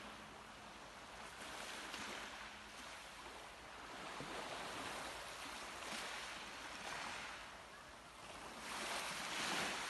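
Black Sea waves washing onto the shore, the noise of the surf swelling and falling back every couple of seconds, loudest near the end.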